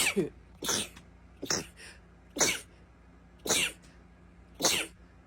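A person's sneezing fit: six short, high-pitched sneezes in quick succession, each dropping in pitch, coming a little further apart as they go.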